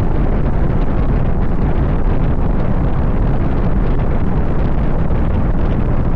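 Wind buffeting the microphone of a camera on a moving car: a steady, loud rumbling rush, heaviest in the low end, with the car's road noise underneath.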